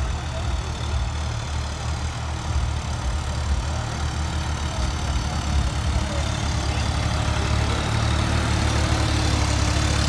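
Swaraj 969 tractor's three-cylinder diesel engine running steadily under load as it pulls a spring-tine cultivator through the soil, growing louder as it comes close in the last few seconds.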